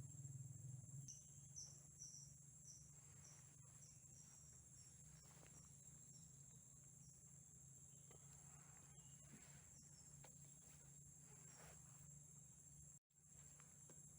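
Faint, steady high-pitched insect chorus over a low steady hum, with a run of short falling chirps at about two a second in the first few seconds. The sound cuts out for a moment near the end.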